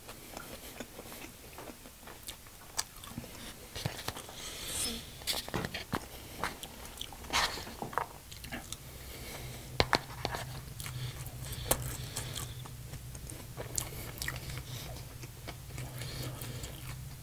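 Close-miked eating: chewing and biting, with sharp clicks of a spoon against a bowl. A low steady hum comes in a little under halfway through.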